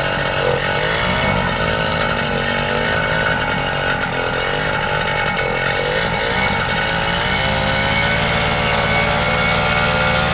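Paramotor's two-stroke engine running on the pilot's back, its pitch wavering at first, then opened up and held steadier from about seven seconds in as the launch run begins.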